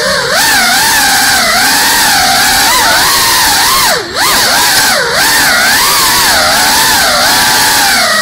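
Small FPV drone's motors and propellers whining, the pitch rising and falling constantly with the throttle. About four seconds in the pitch dips sharply and the sound drops briefly before climbing back.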